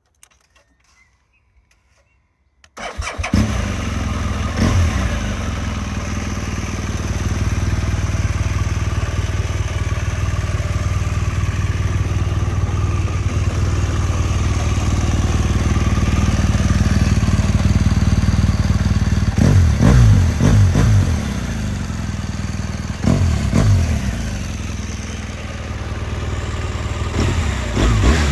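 A 2014 BMW R1200 GS liquid-cooled flat-twin boxer engine on its stock exhaust. After a few faint clicks it starts up about three seconds in and then idles, with several short throttle blips; the longest cluster comes around twenty seconds in.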